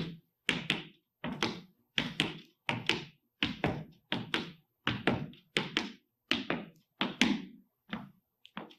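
Footfalls on a floor: a steady run of short thuds about two a second, some in quick pairs, growing fainter near the end.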